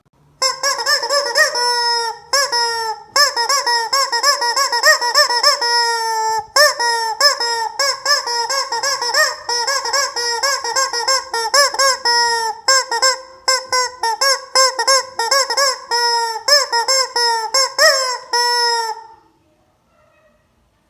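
Noise-making toy chicken squawking in a rapid, loud, honking series of high-pitched calls that bend up and down, about two to four a second with a few short breaks, stopping about 19 seconds in.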